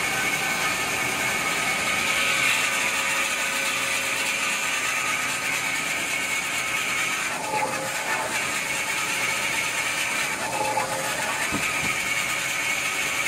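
Semi-automatic band-saw log cutting machine for toilet paper and kitchen towel rolls running steadily, a constant machine noise with a high steady tone. Its sound changes briefly twice in the second half, about three seconds apart, as the blade cuts through the paper-towel log being fed in.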